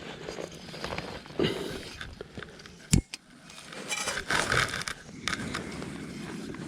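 Handling of camp cooking gear: scattered light knocks and scrapes, a sharp click about three seconds in, and a patch of clattering a second or so later.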